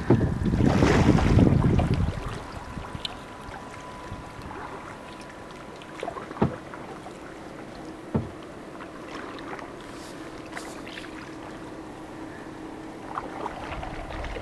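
Canoe on open water: a loud rush for the first two seconds, then quiet lapping and paddling with a faint steady hum. Two sharp knocks, about two seconds apart, come a little before the middle.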